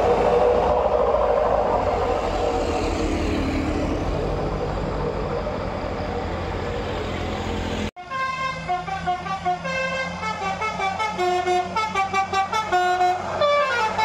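Buses driving past and pulling away, their engines slowly fading. After a cut, about eight seconds in, a bus's musical 'telolet' air horn plays a quick tune of short stepped notes over the engine's hum.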